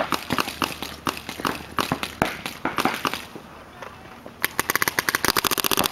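Paintball markers firing strings of sharp pops. There is a short lull a little past halfway, then a fast, even string of shots near the end, about ten a second.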